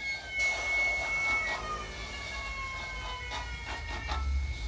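Improvised experimental music: a held high tone and several thin tones gliding slowly downward together, over a low rumble that swells near the end.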